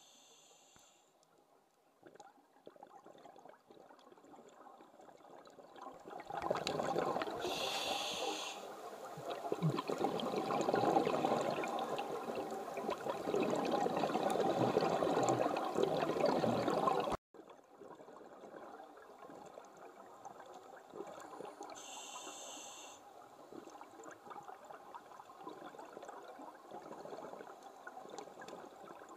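Scuba diver breathing through a regulator underwater: about six seconds in a loud rush of exhaled bubbles begins, with a brief hiss of inhalation near its start. It stops abruptly at a cut, and a softer bubbling follows, with another brief inhalation hiss.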